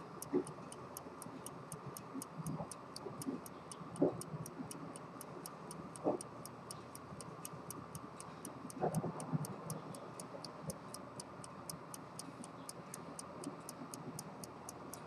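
Antique Qing-dynasty fusee-chain pocket watch ticking quickly and evenly, with a few soft knocks now and then.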